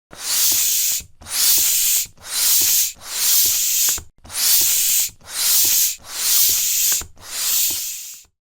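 Air pump inflating a tyre, worked in steady strokes: eight hissing pushes of air, about one a second, each just under a second long. The last one trails off near the end.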